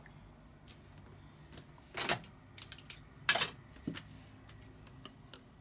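Two short knocks, about two and three and a half seconds in, with a few faint clicks between: bowls and utensils being handled on a table.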